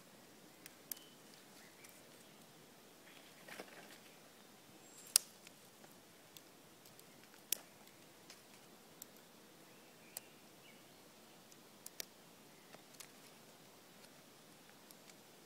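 Small dry twigs snapping by hand, sharp irregular cracks one after another as they are broken into kindling, the loudest about five seconds in. A short rustle of twigs about three and a half seconds in.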